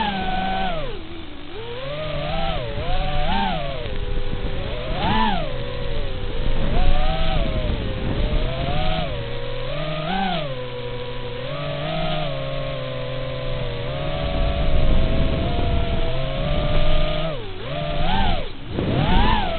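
Furibee X215 Pro racing quadcopter's motors and propellers whining, the pitch swooping up and down as the throttle is worked. It holds a steady pitch for a few seconds midway, then drops and climbs sharply a few times near the end.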